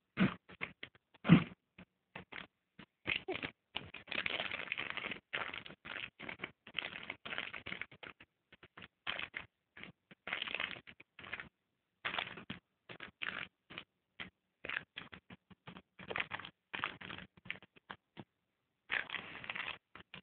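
Empty chicken-snack bag crinkling and rustling in irregular crackly bursts as an Afghan hound plays with it, with two thuds in the first second and a half, the second the loudest.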